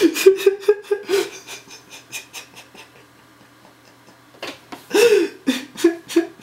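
A man laughing in a string of short, breathy bursts that die away about two and a half seconds in. After a quieter pause of about two seconds, a fresh burst of laughter starts about four and a half seconds in.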